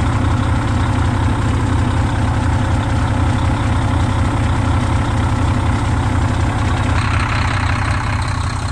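Heavy truck engine idling steadily with a low, even rumble. About seven seconds in, a higher hiss rises over it for a second or so.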